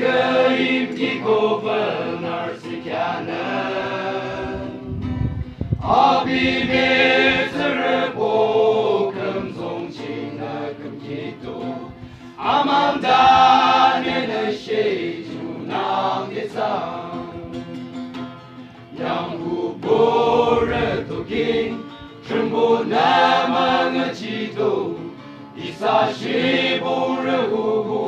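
A group of men singing together as a choir, accompanied by an acoustic guitar. The song goes in phrases of several seconds with short breaks between them.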